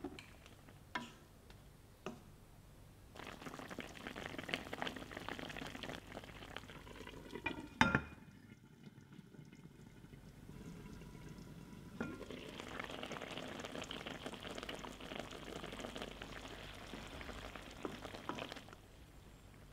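Soy braising sauce bubbling and sizzling in a wok around slices of tofu 'vegan chicken', with a few light taps in the first two seconds. A single knock comes about eight seconds in, then a quieter stretch. Then the sauce bubbles hard again as it is stirred at a full boil to reduce and thicken.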